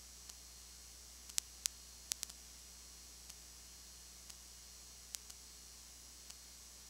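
Recording noise: a steady hiss and low hum with sharp clicks, faint ones about once a second and a few louder ones between one and two and a half seconds in and again near five seconds. No sound of the game itself is heard.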